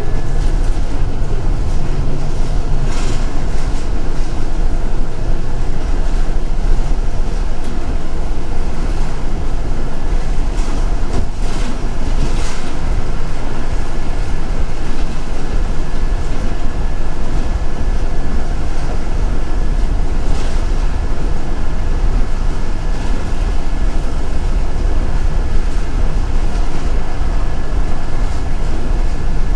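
Inside a moving city bus: engine and road noise make a steady, heavy low rumble, with a thin constant whine over it and a few brief rattles now and then.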